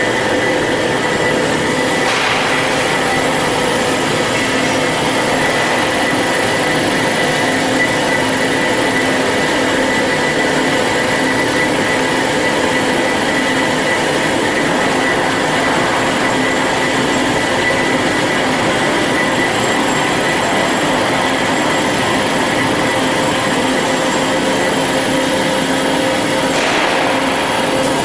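Band saw running continuously at a steady pitch, with a constant mechanical noise under a steady whine.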